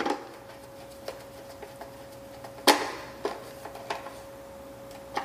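A hand screwdriver tightening screws into a plastic pendant control housing: scattered clicks and knocks of the tool and plastic, the loudest about halfway through, over a faint steady hum.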